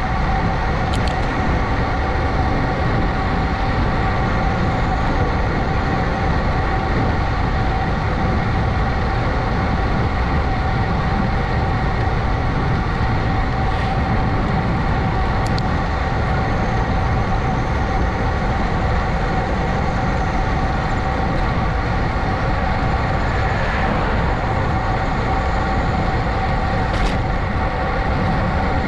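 Steady wind and road rush from a moving ride, with a constant high whine running through it and a few faint ticks.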